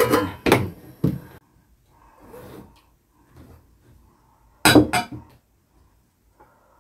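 Clinks of a stainless steel lid being set onto a pot of stew. A few seconds later comes a louder short clatter of dishes as rice is scooped from a pot into ceramic bowls.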